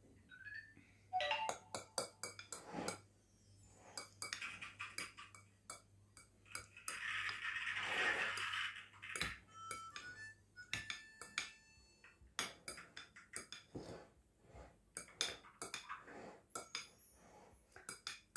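Metal knife and fork clinking and scraping against a ceramic salad bowl as the grated-cheese top of a layered salad is spread and patterned: many short, irregular clinks, with a longer hiss-like stretch near the middle.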